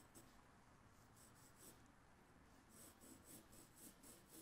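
Faint scratching of a pencil on drawing paper: a few short strokes, then a quicker run of repeated strokes from about two and a half seconds in.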